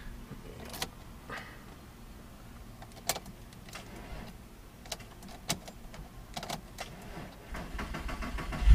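A series of faint, scattered clicks from a VW Jetta MK4 VR6 as the key is turned and the car does not crank, acting as if it has no power: the intermittent no-start the owner first suspected was the starter. Near the end a louder noise builds.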